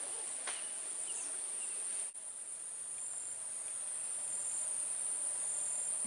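Steady, high-pitched insect chorus, a continuous shrill buzzing that drops out for an instant about two seconds in.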